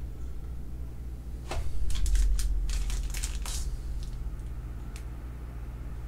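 Card-box packaging being handled: about two seconds of crinkling and rustling, with a low bump under it, over a steady low hum.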